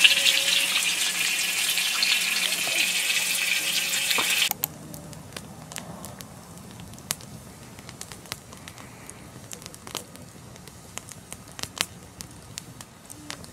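Loud steady sizzling hiss of meat cooking on a grill, cutting off suddenly about four and a half seconds in. After that comes a wood campfire burning quietly, with scattered sharp crackles and pops.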